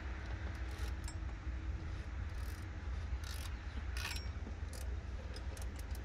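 A ratchet wrench tightening a bolt: scattered short metallic clicks and tool handling over a low steady rumble.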